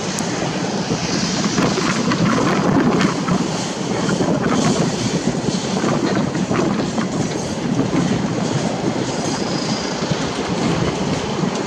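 Empty ballast hopper wagons rolling along the track, their wheels clicking and clattering over the rail joints, mixed with wind buffeting the microphone.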